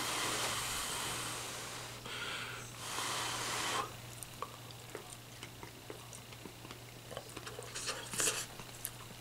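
Two puffs of breath blown over a hot piece of stewed potato on a fork to cool it: a long one, then a shorter one a little after two seconds in. Quiet chewing with small clicks follows once the potato goes into the mouth, over a faint steady electrical hum.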